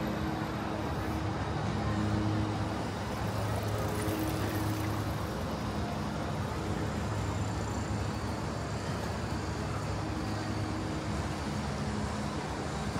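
Steady road traffic, with cars running and passing.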